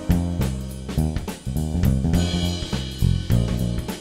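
Instrumental background music with a drum kit and a bass line, keeping a steady beat.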